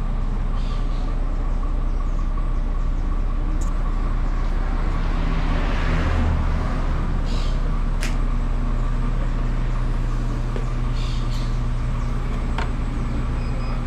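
Road-vehicle engine running steadily, with the rush of a passing vehicle swelling and fading around the middle and a few light clicks.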